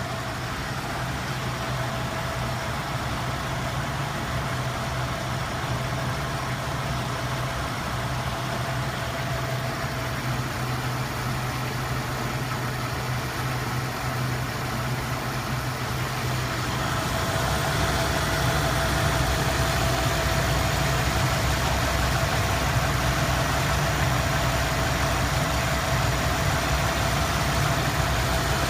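1989 Lincoln Town Car's 5.0-litre V8 idling steadily, getting louder about two-thirds of the way through without any change in speed. The engine is running rough with what the owner takes for a misfire, even though the cylinder balance test passes.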